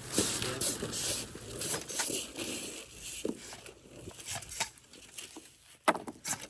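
Rustling and scraping with scattered clicks from radiant-heat tubing being handled and laid out over foam board and wire mesh, with a sharp knock near the end.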